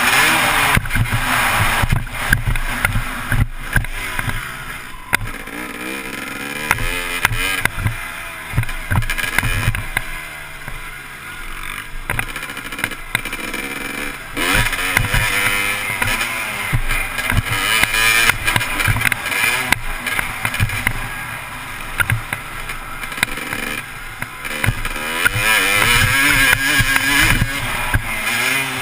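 Motocross dirt bike engine revving up and down as it is ridden hard around the track, the pitch rising and falling over and over, with wind rushing over the helmet-mounted microphone. It is loudest at the start and over the last few seconds.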